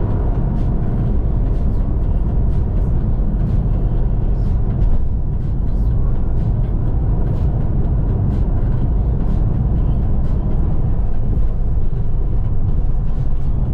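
RV driving on the highway: a steady, loud rumble of road and engine noise.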